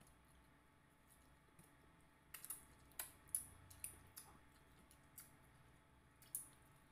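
Faint mouth sounds of eating with the hands: short lip smacks and clicks while chewing fish. They bunch together a couple of seconds in, then come more sparsely.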